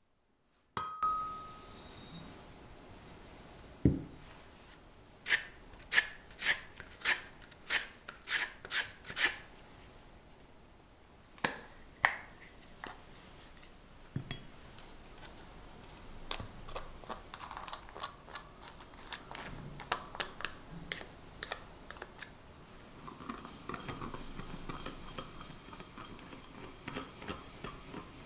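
Close-up kitchen prep sounds around a glass mixing bowl: a thud about four seconds in, a quick run of about eight sharp clicks, then scattered light ticks. Near the end comes a steady scraping as a small wire whisk mixes sugar and citrus zest in the glass bowl.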